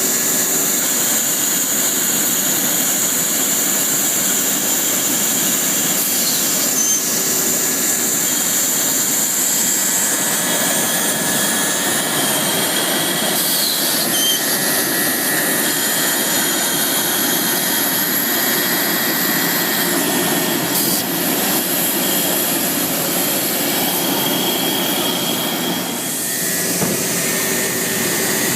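LeRoi air compressor running steadily: a loud, even mechanical din with high steady tones over it, dipping slightly in level near the end.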